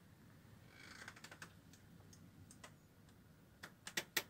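Faint scattered small clicks and taps, with a soft rustle about a second in and a few sharper clicks near the end.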